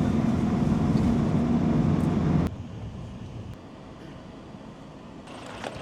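A vehicle engine running steadily with a low hum, which stops abruptly about two and a half seconds in, leaving a much quieter background noise.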